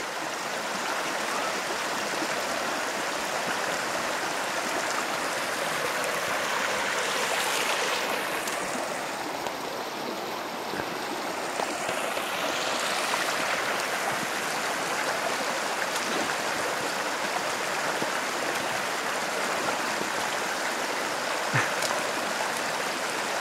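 Shallow rocky creek flowing: a steady rush of running water over stones, its hiss dulling for a few seconds in the middle. A single short knock sounds near the end.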